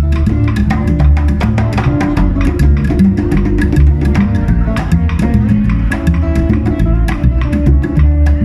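Latin band playing an instrumental passage of a guaguancó, plucked guitar over bass and busy hand percussion with sharp, steady clicks.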